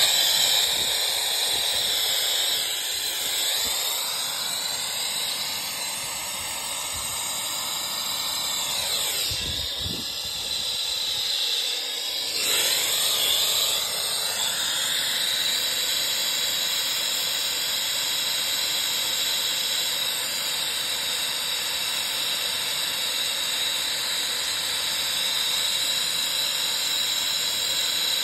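Gas torch flame hissing steadily as it heats a copper line-set joint at a condenser's brass service valve, the hiss briefly sweeping down and back up in tone about ten to thirteen seconds in.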